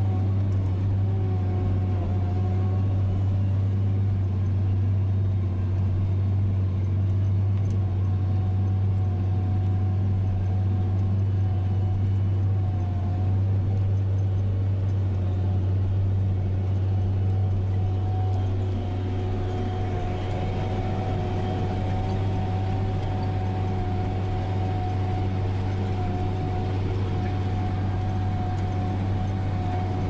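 Tractor engine running steadily while pulling a baler, a low continuous drone with a faint steady whine over it. The sound changes slightly about two-thirds of the way through.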